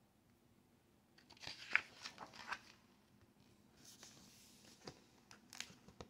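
Paper pages of a picture book being turned and handled: soft rustles and crinkles about a second in, then fainter rustling and a few small clicks near the end.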